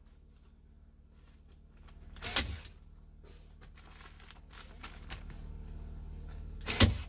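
Hand staple gun fastening insulation: two loud clacks about four seconds apart, with lighter rustling and clicks of the material being handled between them, over a steady low hum.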